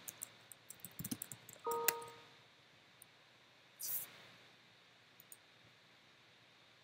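Faint computer keyboard and mouse clicks as a short comment is typed: a scatter of light clicks in the first second and a half and two more a little after five seconds. A brief pitched tone comes about two seconds in, and a short hiss around four seconds.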